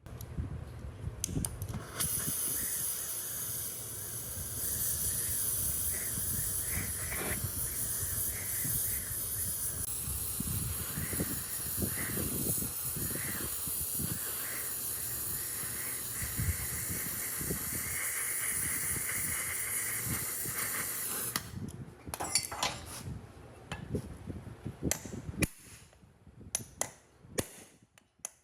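A steady, loud hiss of high-pressure spray, such as a jet of air or water, runs for about twenty seconds. Low knocks sound underneath it. The hiss cuts off suddenly and gives way to scattered sharp metal clicks and knocks.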